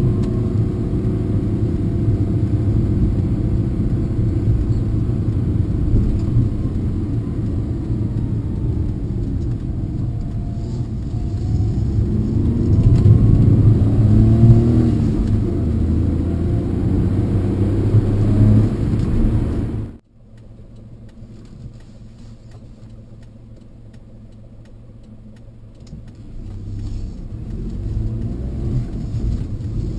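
Suzuki Alto HA23V kei van's engine and road noise heard from inside the cabin while driving, rising in pitch and loudness as it accelerates about twelve to fifteen seconds in. About twenty seconds in the noise drops suddenly to a low hum, then builds again near the end.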